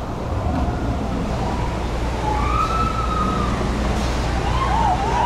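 Distant wavering shrieks of people, one long cry about halfway through and several rising and falling near the end, over a steady low rumble.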